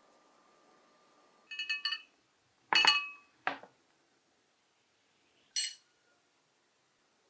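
Ceramic dishes and a metal spoon clinking with a bright, ringing sound. A quick run of small clinks comes about a second and a half in, the loudest clink just under three seconds in, another soon after, and a last one about five and a half seconds in.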